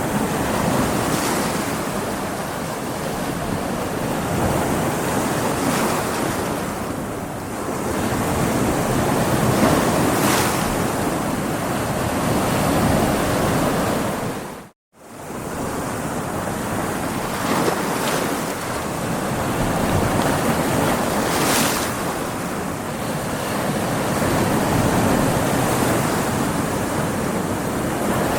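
Ocean waves breaking and washing against rocks, a steady rush of surf that swells and eases every few seconds. The sound cuts out completely for a split second about halfway through.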